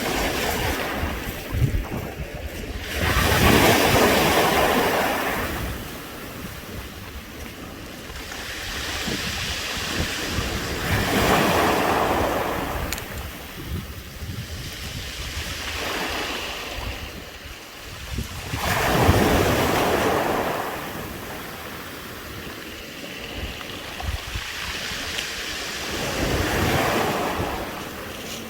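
Waves washing up a round-pebble beach and drawing back, rattling the smooth stones: four surges, one about every seven to eight seconds. Wind buffets the microphone throughout.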